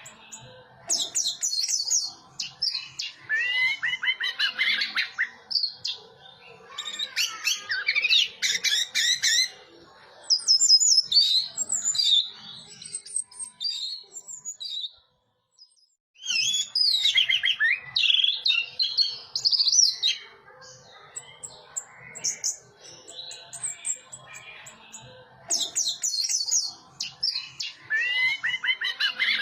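Orange-headed thrush singing a long, varied song of rapid whistled and chattering phrases with quick rising and falling notes, in bouts of a few seconds broken by short pauses, with a longer break about halfway through.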